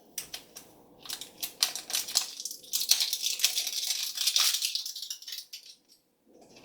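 Wrapper of a Disney Princess surprise egg being crinkled and torn open by hand, a dense run of sharp crackles that dies away about a second before the end.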